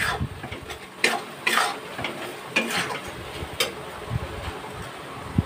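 Metal spatula scraping and stirring onion and ground spices frying in oil in a steel kadhai, with a light sizzle. There are irregular scrapes about every half second to a second, and they thin out after about four seconds.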